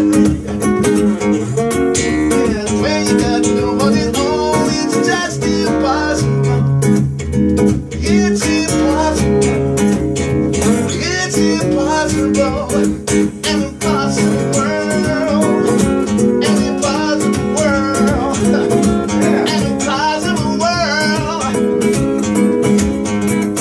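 A song performed on guitar, strummed and played steadily, with a singing voice.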